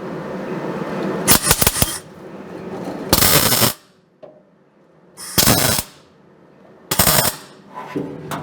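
Welder tacking steel pedal plates onto pedal arms: four short bursts of welding crackle, each about half a second long, a second or two apart.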